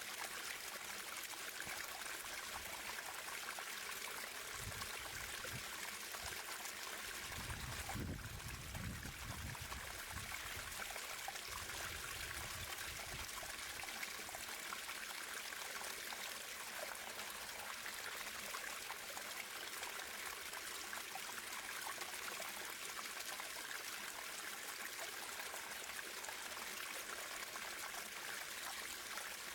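A stream of running water flowing steadily with a constant rushing and trickling. A low rumble comes in for a few seconds about a quarter of the way through.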